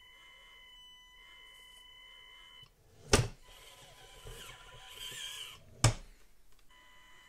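Micro-scale RC rock crawler: a steady high electric-motor whine, which cuts out a little before two sharp knocks about three and six seconds in as the small truck tumbles off the wooden crawler-course obstacle onto the mat, with scraping between the knocks.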